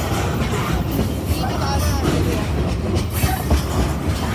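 Freight train of tank cars rolling past at close range: a steady rumble of steel wheels on the rails, with a few sharp clacks as the trucks pass.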